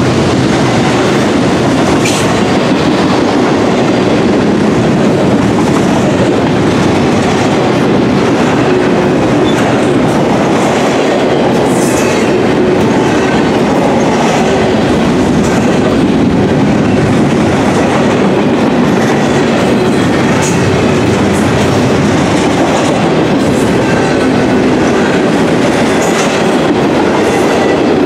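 Double-stack intermodal container well cars of a freight train rolling past close by: a loud, steady rumble and clatter of steel wheels on rail, with occasional sharper clicks.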